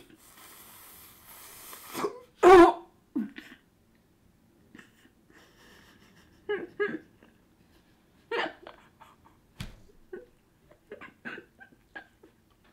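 A woman slurps noodles with a couple of seconds of sucking hiss, then chokes on them: a loud cough-gag about two and a half seconds in, followed by scattered coughs, gasps and throat noises as her airway clears.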